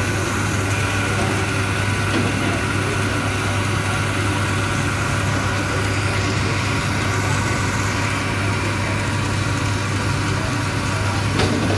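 A steady low motor hum, with a short knock just before the end.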